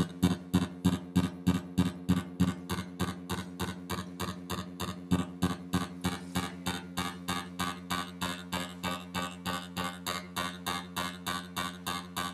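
Distorted electronic pulsing from a solar cell picking up flashing strobe lights, fed through delay and distortion pedals into an amplifier and speaker: a rapid, even throb of about three to four pulses a second over a steady low hum.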